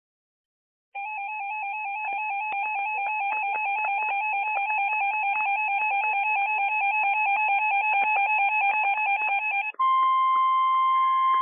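Electronic alert tones: about a second in, a loud two-pitch warbling tone with clicks running through it starts and goes on for about nine seconds, then gives way to a steady single-pitch beep lasting about two seconds, the kind of attention tone that leads into an emergency weather alert message.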